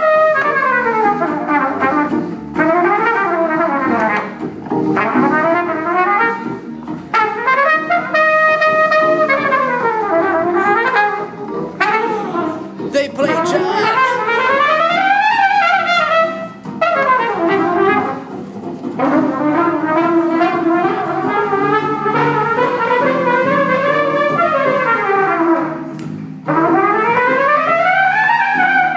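Trumpet playing long, continuous slides up and down in pitch, over steady sustained Hammond organ tones.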